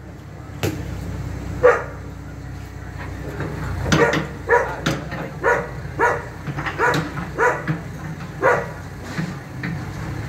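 A dog barking repeatedly: two single barks in the first two seconds, then a quick run of barks, about two a second, from about four seconds in, over the low steady hum of an engine.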